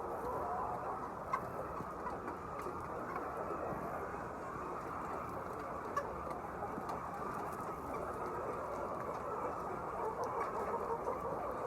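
A large flock of hens clucking together in a steady, dense chatter, with two sharp clicks, one early and one in the middle.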